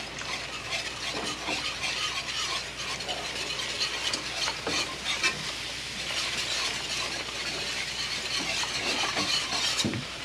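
Wire whisk stirring and scraping in a skillet of hot flour roux as milk is poured in to make gravy, with many small clicks against a steady sizzle from the pan.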